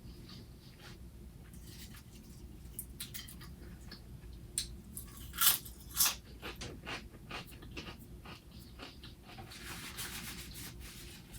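Close-miked chewing and wet mouth smacks of a person eating a sandwich, with two louder smacks about halfway through, over a steady low room hum.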